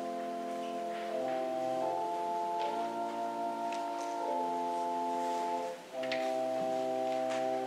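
Organ playing slow held chords as the closing postlude of a service, with a brief break in the sound a little before the end.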